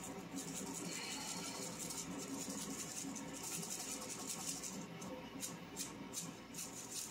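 Small glass spice jar of crushed red pepper flakes shaken over shredded mozzarella: soft rustling shakes that come and go, with a few quick ticks about five seconds in.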